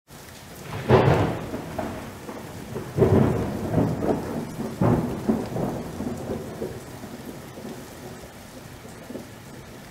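Thunderstorm sound effect: three rumbling thunderclaps about one, three and five seconds in, each dying away, over a steady hiss of rain.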